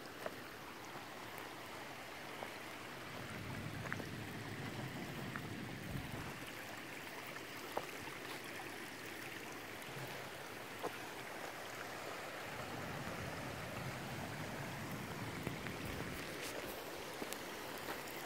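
Footsteps on loose gravel and stones, heard as a few sharp clicks and crunches over a steady rushing background.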